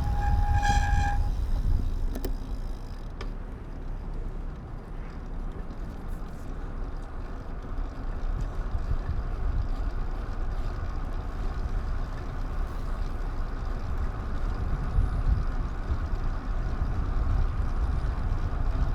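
Low rumble of riding and wind on an action camera's microphone. It eases off a few seconds in, then builds again. Near the start comes one short horn-like tone, about a second long.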